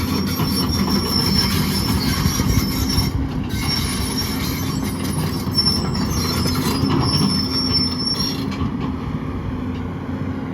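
XCMG XE210 crawler excavator being operated, its Cummins diesel running steadily under load while steel parts of the machine give off high metallic squeals and clanking that come and go, typical of the tracks and undercarriage as it moves. The squealing breaks off briefly about three seconds in and stops near the end.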